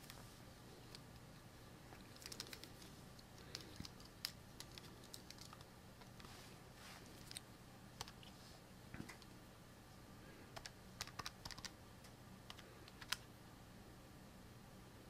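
Faint key clicks from typing on a keyboard, coming in short irregular clusters with gaps between them, over a low steady electrical hum.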